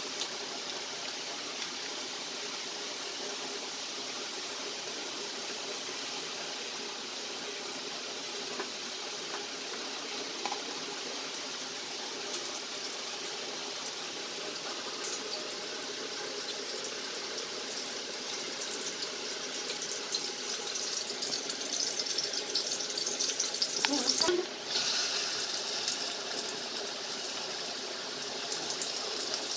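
Egg-and-cornflour-coated chicken pieces frying in hot oil: a steady sizzle with fine crackling that grows louder after about twenty seconds and breaks off briefly near the end before carrying on.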